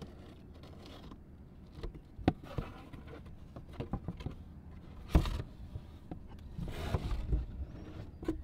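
Cardboard box of stretch wrap being slit open with a utility knife and unpacked: its flaps scrape and rustle, with a few sharp knocks and a longer scrape near the end as the plastic-covered film roll is pulled out.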